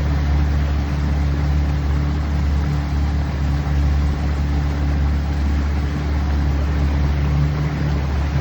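An engine running steadily at constant speed: a low, even hum with a wash of noise over it, unchanging throughout.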